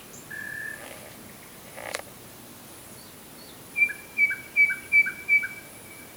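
Nightingale singing: a single pure whistled note near the start, then a loud run of five repeated notes, about three a second, in the second half.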